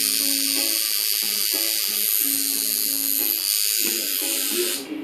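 Tattoo machine buzzing steadily at a high pitch, then cutting off suddenly near the end.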